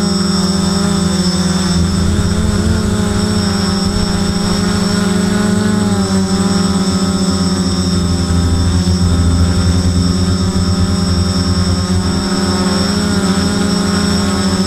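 FPV multirotor drone's electric motors and propellers buzzing steadily, heard from the camera on board, with a steady high whine above and the pitch wavering slightly as the throttle changes.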